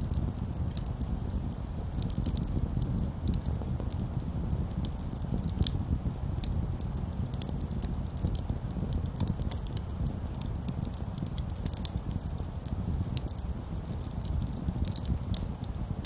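Wood campfire of split sticks burning, crackling with many irregular sharp pops and snaps over a steady low rumble.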